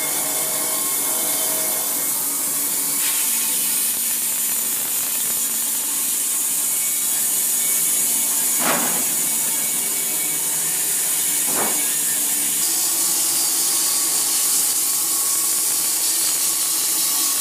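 Bandsaw sawmill running, its blade cutting steadily lengthwise through an oak log. Two short knocks come around the middle of the cut.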